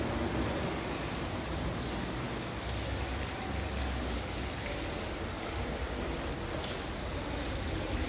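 Steady rushing noise of water splashing in a stone courtyard fountain, with an uneven low rumble of wind on the microphone.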